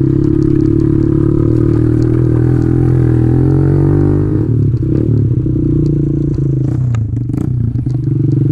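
Kawasaki KLX110 pit bike's small four-stroke single-cylinder engine running under throttle on a dirt trail. It holds a steady pitch for about four seconds, wavers as the throttle changes around the middle, then steadies again. A few rattling knocks come in the second half.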